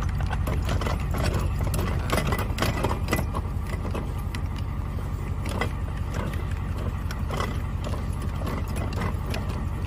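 Trailer tongue jack being hand-cranked to let the coupler down onto the hitch ball, giving off metallic clicks and clanks that are thickest in the first few seconds. Under it, a diesel pickup idles steadily.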